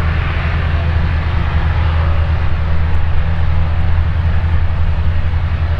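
Propeller engine of a light aircraft running steadily, a loud continuous low drone with a broad noisy rush above it.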